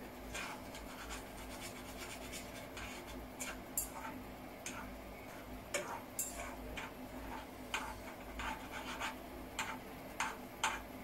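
Chopsticks clicking and scraping against a small saucepan as noodles are stirred in it: irregular light taps, a few each second.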